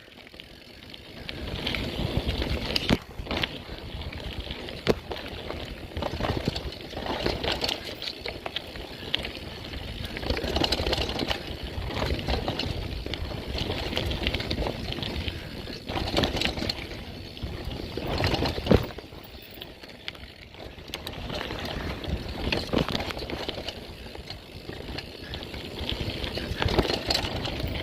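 Mountain bike riding down a dirt trail: tyres on dirt with knocks and rattles over bumps and wind rushing on the microphone.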